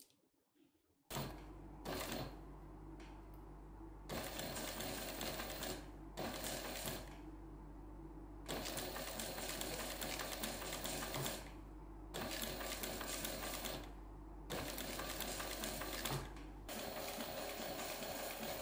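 Juki industrial sewing machine stitching a metal zip onto leather. It runs in repeated bursts of one to three seconds with short pauses between them, over a steady low hum.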